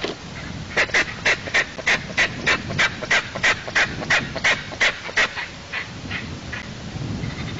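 Eastern imperial eagle calling: a rapid series of about fifteen loud, evenly spaced calls, about three a second, trailing off into a few fainter calls.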